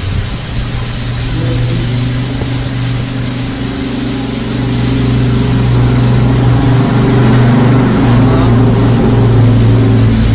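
A motor engine running steadily at a constant pitch, growing louder about halfway through.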